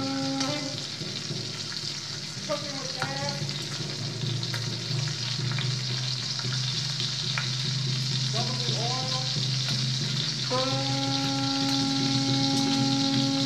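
Hot oil sizzling steadily, amplified through microphones, as a saxophone is deep-fried. A conch shell horn sounds a steady held note at the very start and again over the last few seconds, with two short wavering tones in between.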